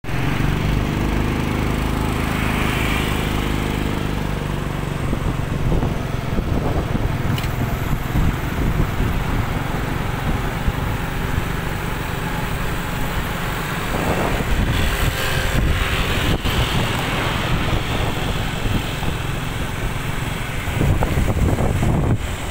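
Motorbike engines running amid road traffic, with steady low wind rumble on the microphone; an engine's hum stands out in the first few seconds.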